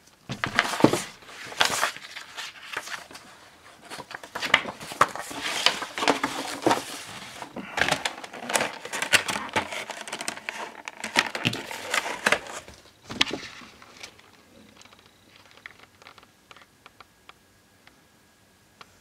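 Clear plastic packaging crinkling and crackling as it is handled, dying down about fourteen seconds in to a few light clicks and taps.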